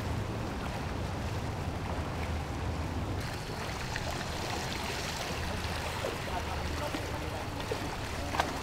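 Outdoor ambience of a flooded street: water moving and sloshing over a steady low engine hum, with a few faint knocks.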